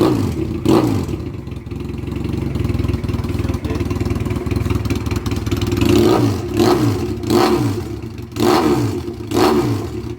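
Keeway Patagonian Eagle 250 V-twin engine running through a custom trumpet exhaust. It is blipped once about a second in, runs steadily through the middle, then takes about five quick throttle blips in the second half, the revs falling back after each.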